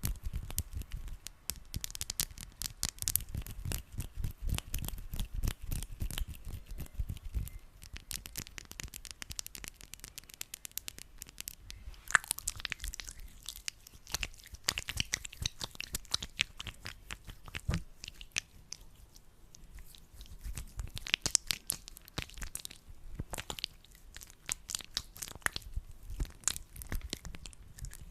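Hands rubbing sticky aloe vera gel close to the microphone: dense, wet sticky crackling and clicking that comes in waves, with a thinner stretch about two-thirds of the way through.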